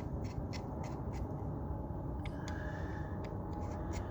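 Caulking gun being worked to seal the bottom of an outdoor outlet box: a series of short, sharp clicks, a few each second, over a steady low rumble.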